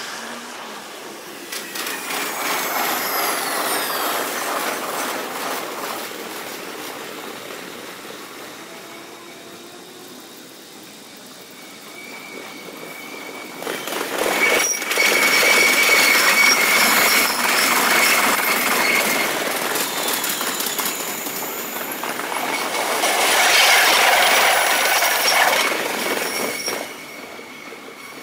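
Electric trains running on the rails, played back at about five times speed, so their running noise comes out high-pitched and swells and fades quickly. There are three loud passes, with a thin steady whine over the loudest two.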